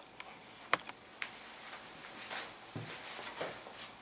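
A few sharp clicks in the first second or so, the loudest about three-quarters of a second in, then soft, irregular rustling and shuffling of someone moving about in a small room.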